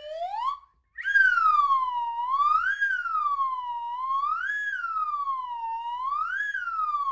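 A siren-like wailing tone that slides upward briefly at the start, then, after a short break, rises and falls in pitch about every two seconds.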